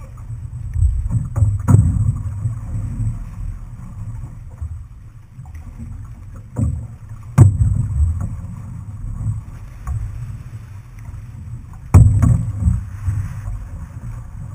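Outrigger canoe under paddle, with a steady low rumble of water and wind buffeting the microphone. Three sharp knocks a few seconds apart are the loudest sounds.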